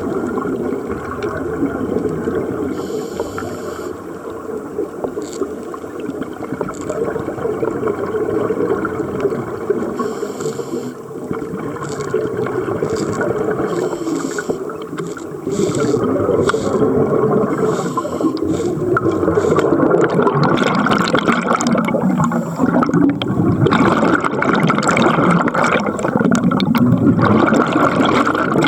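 Underwater sound from a diving camera: water noise with bubbling and scattered clicks, louder from about halfway through.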